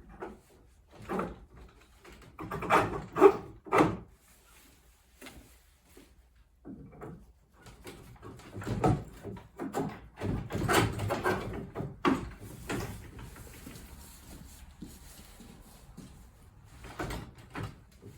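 Wooden hinge prototype being handled: irregular knocks and scraping of wood on wood as the parts and pin are fitted and moved. There is a cluster of sharp knocks about three seconds in, and a longer run of scraping and knocking from about eight to thirteen seconds.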